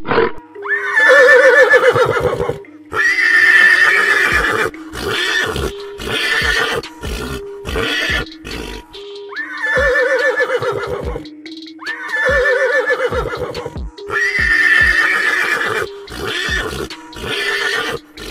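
Horses whinnying again and again: five long neighs of one to two seconds each, with shorter calls between.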